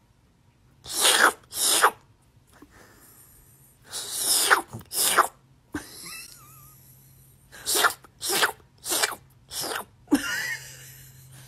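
A person sneezing over and over, about ten short, sharp sneezes at uneven gaps, with a brief warbling sound about six seconds in.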